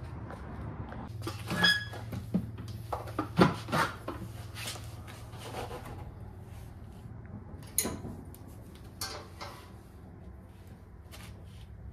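Hand tools clinking and knocking against the mower's metal parts in scattered, irregular strikes, with one ringing metallic clink about two seconds in and a louder knock a little after three seconds. A steady low hum runs underneath.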